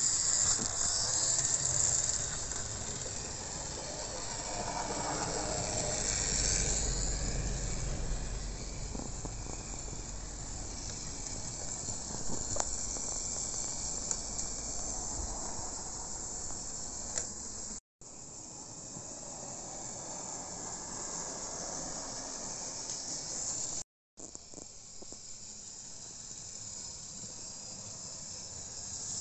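Model railway steam locomotive and its freight wagons running on the layout track: a steady high whirring hiss from the small motor and the wheels on the rails. The sound cuts out briefly twice in the second half.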